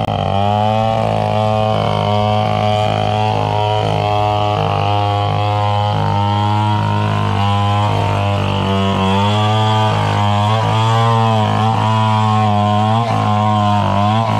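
Stihl chainsaw's two-stroke engine idling steadily, its pitch wavering slightly but never revving up into a cut.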